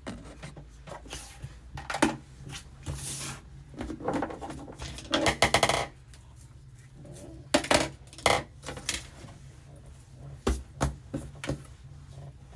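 Small hard objects being handled, clinking and clattering in a series of sharp knocks, with a quick rattling run about halfway through.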